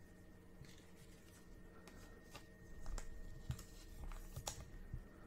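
Faint handling of a stack of cardboard baseball trading cards: soft rustling and a few short clicks as cards are slid and tapped against one another.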